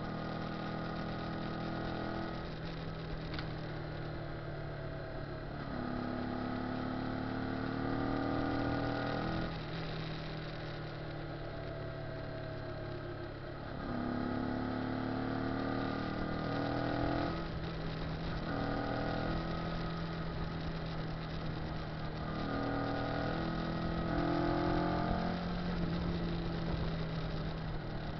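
Kawasaki ZZR250 parallel-twin engine pulling the bike along, its revs climbing and then dropping five or six times as the rider changes gear, over steady wind rush.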